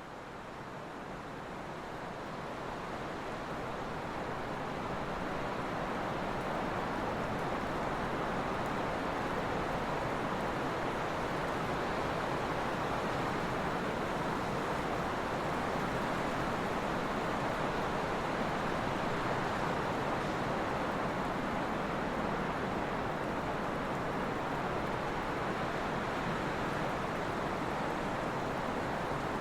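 Trade wind blowing steadily: an even rushing noise that fades in over the first few seconds and then holds level.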